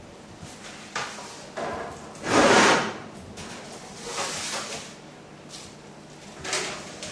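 Oven being opened and a baking tray slid in: a series of scrapes and clunks, the loudest a longer scrape about two and a half seconds in.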